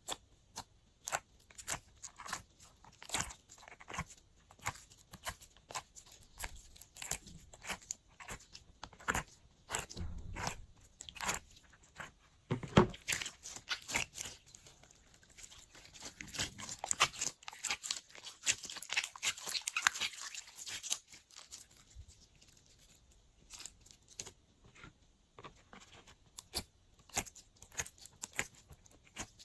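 Glossy slime being squished and stretched by hand, making rapid sticky clicks, pops and crackles. There is one louder snap near the middle, and the clicking grows denser for several seconds after it.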